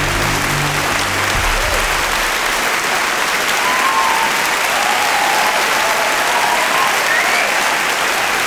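A large auditorium audience applauding steadily and densely, with a few voices calling out above the clapping. Low background music fades out under the applause in the first two seconds.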